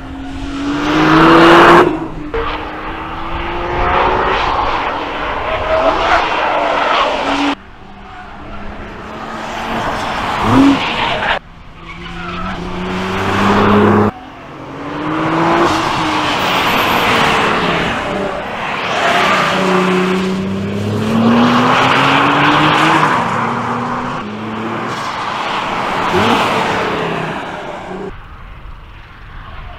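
2022 Nissan GT-R's 3.8-litre twin-turbo V6 engine and exhaust at speed on a race track, in several passes. The revs climb and drop again as the car comes by, and the sound swells and fades.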